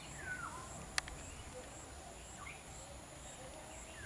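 Outdoor ambience: a steady high insect drone, one tone pulsing about twice a second, with a few short falling chirps near the start and again past halfway. A single sharp click comes about a second in.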